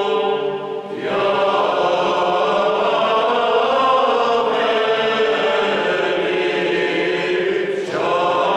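Men's choir singing Orthodox church chant a cappella, in held, sustained notes. Two short breaths break the singing, just before a second in and near the end, each followed by a new phrase.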